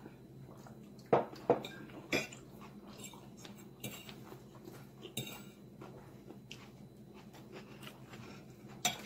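Metal fork clinking and scraping against a plate while eating, with three sharp clinks in the first couple of seconds and lighter taps after.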